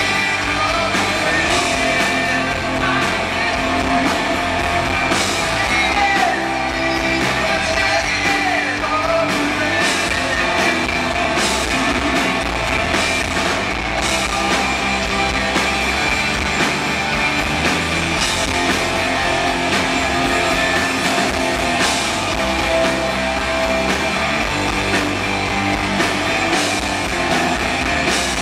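Live rock band playing: two electric guitars, bass guitar and drum kit with cymbal crashes, and a voice singing over them.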